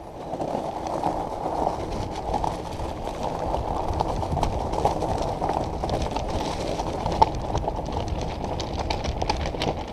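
Salsa Bucksaw full-suspension fat bike riding over coarse gravel ballast. The tires give a steady rolling rumble over many small clicks and knocks of stones and bike rattles, with one sharper knock about seven seconds in.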